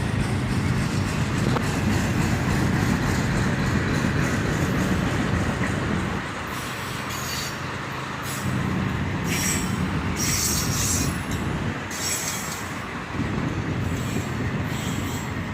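Freight train passing: the trailing diesel locomotive's engine drone and wheel rumble, then loaded autorack cars rolling by with intermittent high-pitched wheel squeal starting about six seconds in.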